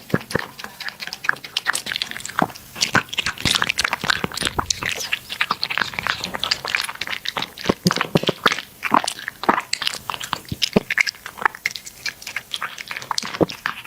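A cat chewing crunchy food, with rapid, irregular crunches.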